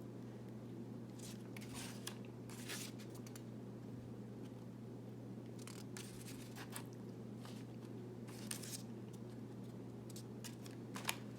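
Faint, intermittent rustles and scrapes of paper cut-outs being handled and glued down, over a steady low electrical hum.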